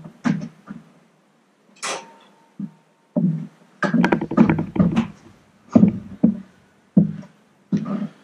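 Metal hand tools knocking and clattering as they are handled against the engine and workbench. The sound is a series of sharp knocks, with a brief metallic ring about two seconds in and a quick flurry of clatters around the middle.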